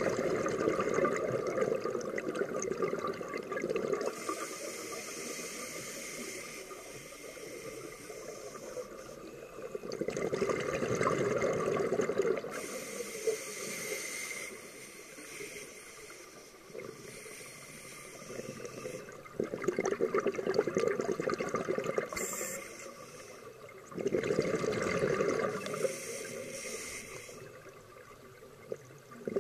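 A scuba diver's regulator breathing, heard underwater: four loud surges of exhaled bubbles, each two to four seconds long, with a quieter high hiss between them.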